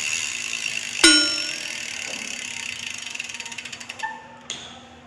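Bicycle being worked on: a sharp metal clang that rings on about a second in, then a run of rapid ratchet clicking like a freewheel hub spinning, and two lighter knocks near the end.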